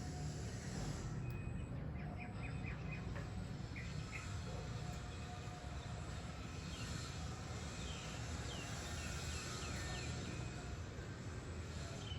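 Steady low background noise with scattered short, faint high chirps, a few in a cluster about two seconds in and a run of them from about halfway to near the end.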